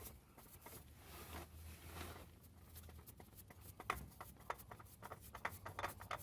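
Faint, scattered light clicks and taps of hands handling tools and parts, coming more often in the second half, with a sharper click about four seconds in and another near the end.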